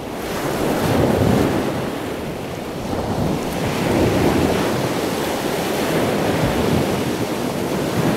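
Ocean surf breaking and washing up a sandy beach, a steady rush of water that swells and eases every few seconds.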